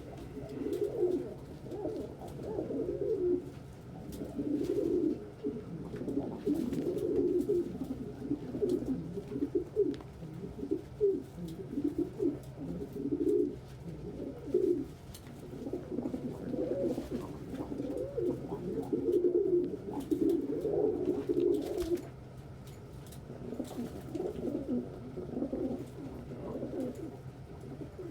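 Several domestic pigeons cooing in the loft, low rolling coos overlapping almost without a break, with a brief lull past the middle.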